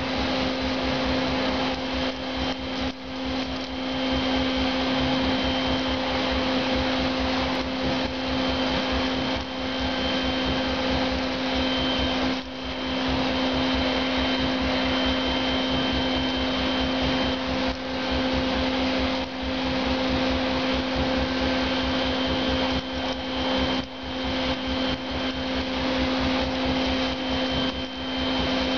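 X-FLOC M99 insulation blowing machine running steadily, blowing loose rock wool through a corrugated hose: a steady rush of air over a constant hum. The level dips briefly a few times.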